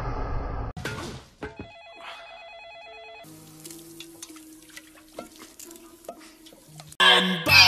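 A warbling electronic telephone ring lasting a couple of seconds, followed by quieter steady tones. Loud music starts near the end.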